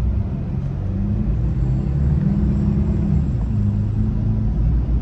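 City bus engine droning and rumbling, heard from inside the moving bus, its pitch shifting slightly as it drives.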